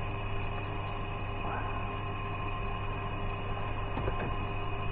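Steady electrical hum in a workshop, with a faint knock or two about four seconds in as tools are handled on the bench.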